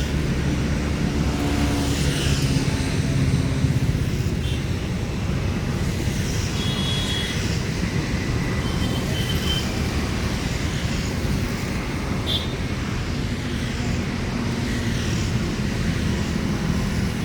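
Steady road traffic noise: a continuous rumble of vehicle engines, with a few short high tones partway through.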